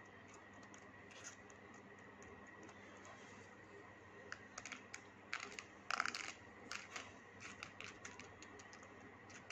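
Faint, scattered light taps and scratches of fingertips patting dry yellow dal grains onto glued paper, few at first and busier from about four seconds in.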